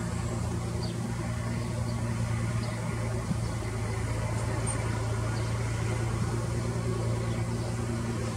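Diesel engine of a loaded 18-wheel truck and trailer running steadily at low revs as it reverses slowly through the field.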